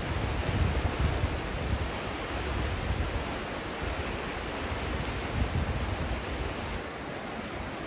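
Indus River in flood, fast muddy water rushing past in a steady roar, with an uneven low rumble underneath that eases near the end.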